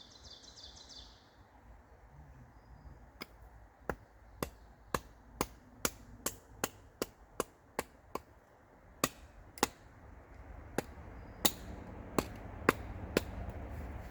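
Wood being chopped into kindling with a blade: a run of sharp chops, about two a second, then slower, more spaced chops near the end.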